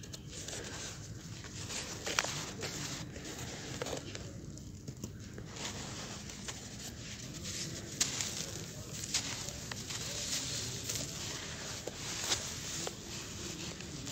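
Dry sand-and-cement mix crunching and rustling as hands squeeze clumps apart and let the powder pour through the fingers, with a few sharp crunches.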